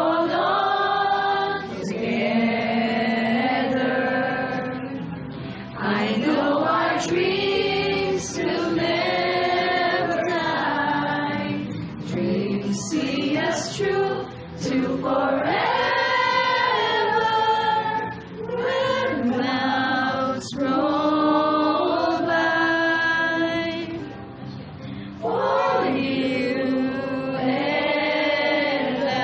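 A group of people singing a hymn together, with a woman's voice on a microphone carrying the melody; the sung phrases break for brief pauses every few seconds.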